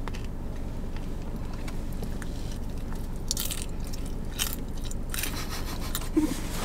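Crunchy bite of fried chicharrón de pollo being chewed close up: a few crisp crunches starting about halfway in, over a low steady hum.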